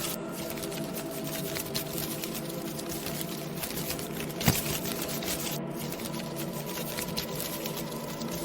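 Halloween ambience soundscape: a continuous dense crackling and pattering over a steady low drone, with one sharper crack about four and a half seconds in.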